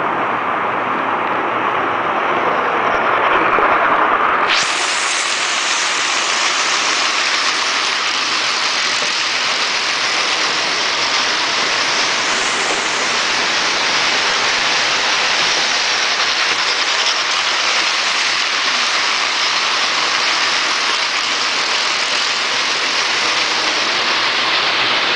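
Märklin HO model trains running on metal track, among them a Krokodil pulling a string of goods wagons: a steady rushing clatter of wheels and motors. It turns brighter and hissier about four and a half seconds in.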